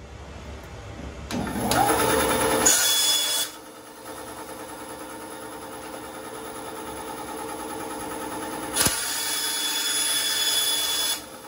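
Benchtop bandsaw starting up about a second in with a rising whine, then running steadily. Near the end it grows louder for a couple of seconds as the blade cuts into a clear acrylic sheet.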